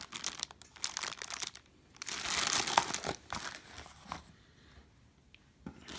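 Plastic packaging bag and cardboard insert crinkling and rustling as they are handled: rustling for the first second and a half, a louder crinkling stretch from about two to three seconds in, then fainter scattered rustles.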